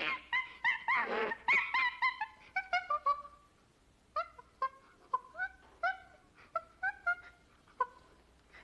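Monkey calls: a quick run of short pitched squeaks and chirps, crowded together and loudest in the first three seconds, then spaced out at about two a second.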